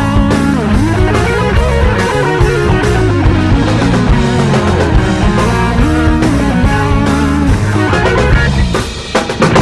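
Rock music with guitar and drums playing. It drops away briefly near the end, then comes back in with a few sharp hits.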